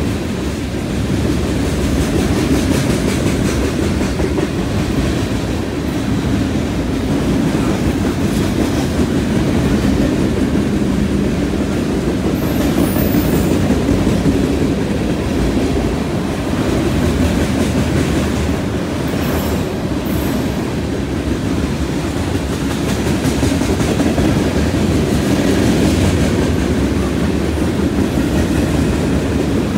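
Freight cars rolling past close by: a steady rumble and clatter of steel wheels on the rails, with brief faint high-pitched wheel squeals twice near the middle.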